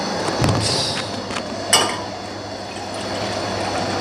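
Steady rushing hum of a lit gas burner under a steel kadai of water. A soft knock about half a second in, and a sharp metal clink a little under two seconds in.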